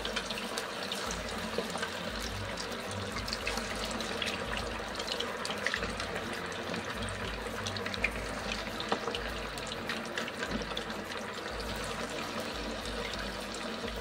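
Marinated chicken pieces deep-frying in hot oil in a kadhai: a steady sizzle with scattered small crackles and pops, with another piece lowered in with tongs partway through.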